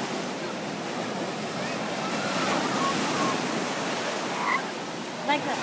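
Ocean surf washing on a beach: a steady rushing noise, with faint voices in the background and a short burst of a voice near the end.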